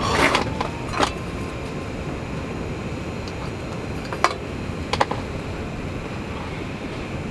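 Wood stove burning with a steady low rumble, broken by a few sharp clicks: one near the start, one about a second in, and two around four and five seconds in.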